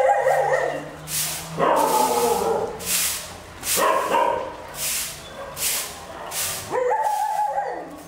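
A dog whines and howls in several long cries. Each cry rises, holds for about a second and then falls away. Over them comes the repeated swish of a broom sweeping a concrete floor, roughly once a second.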